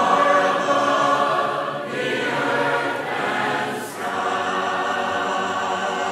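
A mixed choir singing a hymn unaccompanied in four-part harmony, loud, on the closing line, holding the final chord from about four seconds in.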